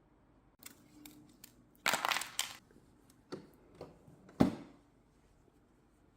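Ice cubes clattering and clinking: a few light clicks, a dense rattle about two seconds in, then single knocks, the sharpest about four and a half seconds in.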